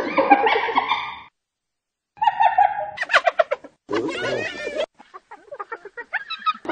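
Hyenas giggling: rapid, repeated cackling calls in several short bouts. There is a silent gap of about a second after the first second, and the bouts start and stop abruptly.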